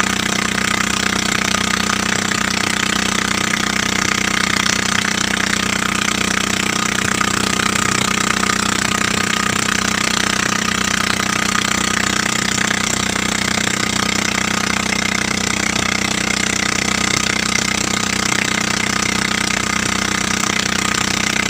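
Motorboat engine running steadily under way, with water rushing past the hull.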